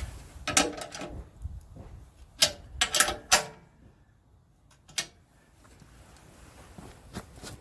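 Hand tools clicking and clinking on metal as the bolts of the snowblower skid shoes are tightened: a handful of sharp clicks, a cluster about a second in, three more between two and a half and three and a half seconds in and one near five seconds, then a lull.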